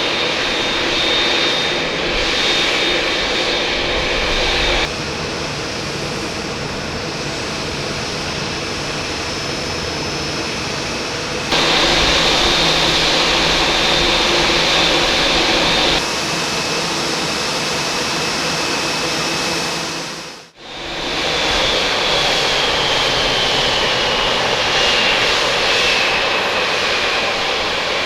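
Boeing 787 turbofan engines (GE GEnx and Rolls-Royce Trent 1000, alternating short recordings) running at idle with a steady high whine, the sound switching abruptly between recordings every few seconds. About two-thirds of the way in, an engine starts spooling down at shutdown, its whine falling slowly in pitch.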